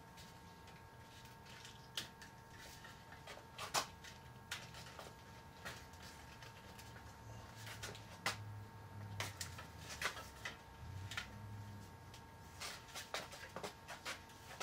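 Soft copper tubing being bent and coiled by hand around a propane tank: irregular faint clicks, taps and scrapes of the metal, over a steady faint background tone.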